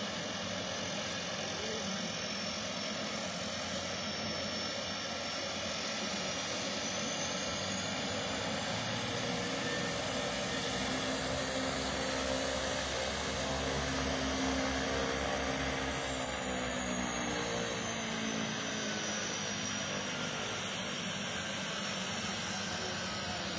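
Twin turboprop engines of a de Havilland Canada Twin Otter running as it taxis on the runway, with a steady propeller drone and a high turbine whine that drifts in pitch. It grows louder around the middle, as the aircraft passes closest.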